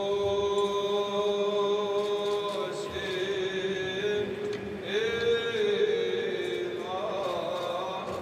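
Male clergy chanting a liturgical hymn in long held notes, the melody stepping to a new pitch every two to three seconds.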